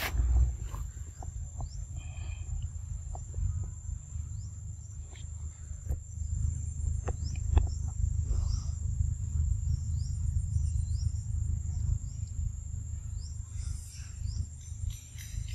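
Forest ambience: a steady high-pitched insect drone with scattered short clicks and small chirps, over a constant low rumble on the microphone.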